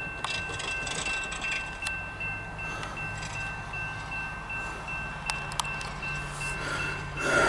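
A railroad bell ringing steadily at about two strokes a second, over the low rumble of an approaching diesel freight locomotive that grows louder after about six seconds. A brief louder swell comes near the end.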